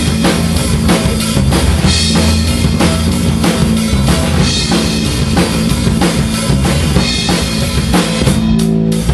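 A live rock band playing loudly: a steady drum-kit beat over an electric bass line, with no singing. Near the end the drums drop out for a moment while the bass carries on.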